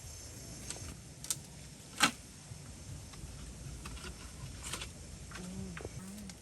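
A few scattered sharp clicks or snaps, the loudest about two seconds in, over a quiet background.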